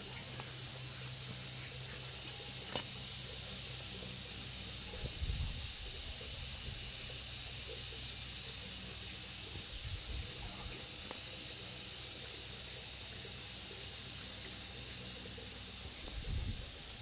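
Steady background hiss with a faint low hum. Over it, a single sharp metallic click about three seconds in and a few soft low knocks as parts of a dismantled Cub 72 motorbike engine are handled by hand.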